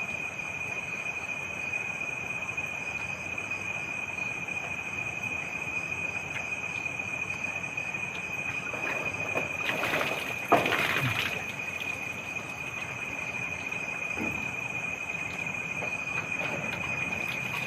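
Night insects, crickets, trilling in a steady high chorus. About ten seconds in, a brief louder rustle and knock interrupts it.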